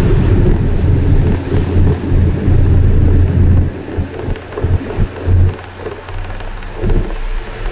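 Loud low rumble of a moving bus: a steady engine drone with irregular gusts over it, dropping quieter after about five and a half seconds.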